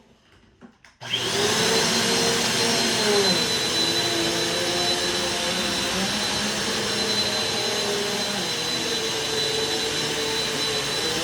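Bissell PowerForce Compact upright vacuum cleaner switched on about a second in: the motor spins up with a briefly rising high whine, then runs steadily.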